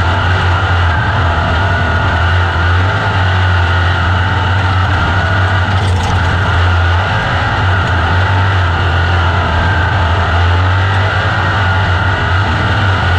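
Onboard sound of a dirt-track open-wheel race car's engine running hard through a heat race, a loud continuous engine note that rises and falls slightly through the turns, with the other cars running close around it.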